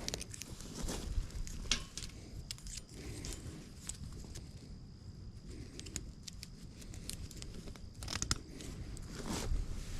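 Irregular rustling and scattered sharp clicks from hands working reusable nylon cable ties loose on wire cattle panels.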